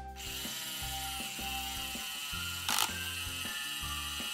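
Plastic toy dentist drill ratcheting as it is turned down into a Play-Doh tooth, with a sharper click a little past halfway.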